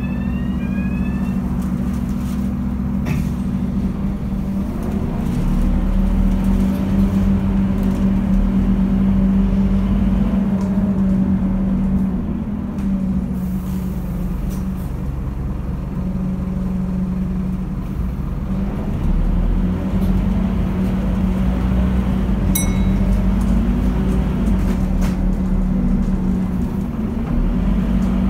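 Scania diesel bus engine heard from inside the passenger saloon of an East Lancs Olympus double-decker, running with a steady low drone while its pitch rises and falls again and again as the bus pulls away and changes gear. A few light clicks come through over it.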